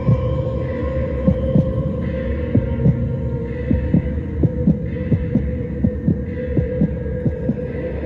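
Steady hum with repeated soft thuds, about two to three a second, in a heartbeat-like pulse.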